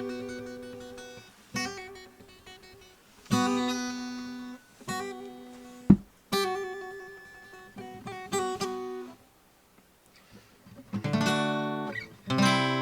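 Acoustic guitar played in ringing chords struck every second or two, with a sharp click about six seconds in, a short pause, then quicker strummed chords near the end. It is heard through a Realistic 33-1062 shotgun condenser microphone.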